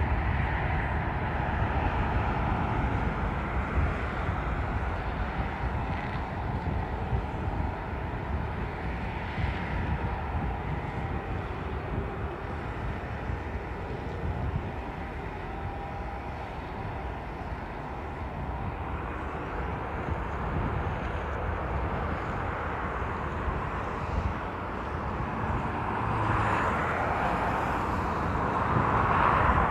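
Jet airliners on approach to land, a steady engine rumble and roar that eases off by the middle and grows louder again toward the end as another plane comes over.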